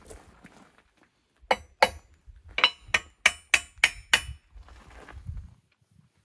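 A hammer striking steel about eight times in quick succession, each blow ringing metallically, followed by a brief low rumble.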